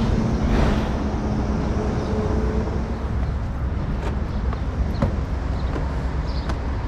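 A car running, a steady low rumble with a faint hum, with a few light clicks about four and five seconds in.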